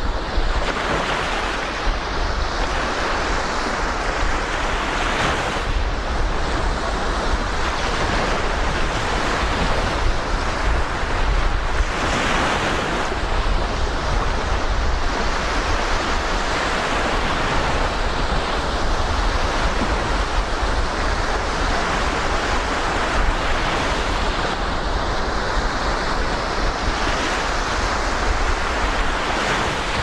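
Black Sea surf washing steadily on the shore, with wind buffeting the microphone in a low rumble.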